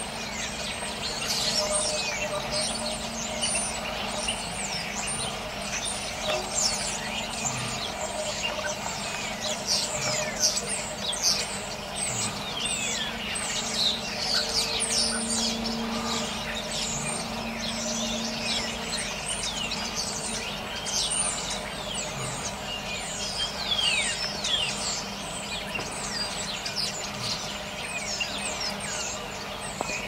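A flock of songbirds calling together: many short, falling whistles and chirps overlapping continuously. A faint steady low hum runs underneath.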